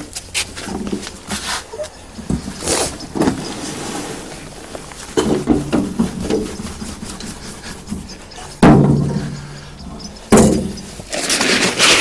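Rustling, scraping and knocks of potato pots and compost being handled, with two louder knocks about two-thirds of the way through and near the end.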